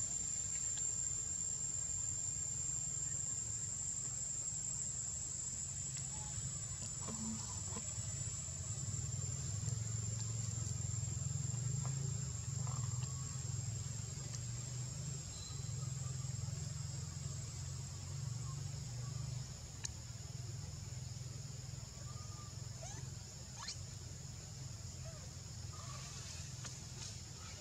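Insects droning steadily at a high pitch over a low rumble, with a few faint short chirps and clicks.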